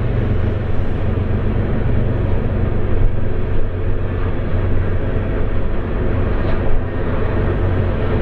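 Diesel locomotives of a BNSF empty coal train working up a grade: a steady low engine drone.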